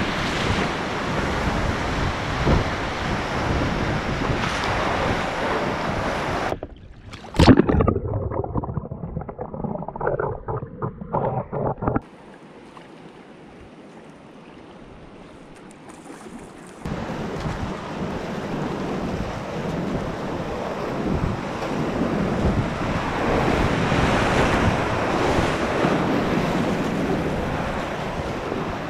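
Whitewater rapids rushing around a kayak, with water splashing over the deck and camera. About seven seconds in comes a sharp hit of water, followed by a few seconds of choppy, muffled sloshing. Then there is a quieter stretch on calm water before the rush of rapids builds again.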